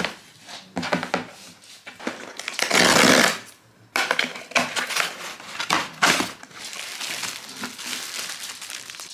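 A cardboard mailer box being handled and ripped open along its perforated tear strip, with a loud tear about three seconds in. Then cardboard flaps rustle and a plastic-wrapped garment crinkles.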